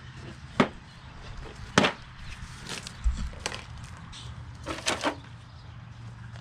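Scattered sharp clacks and clicks of hand tools and sockets being put back into a socket-set case and a plastic organiser, about five or six strokes spread out, with a short cluster near the end.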